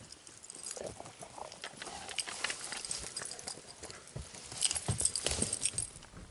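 Dogs moving about close by, their paws scuffing and clicking on gravelly dirt in an irregular patter that grows busier and louder in the second half.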